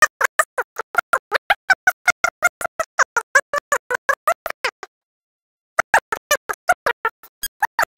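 Rapid, evenly spaced pulsing sound, about six short pulses a second, breaking off for about a second a little past the middle and then resuming at the same pace.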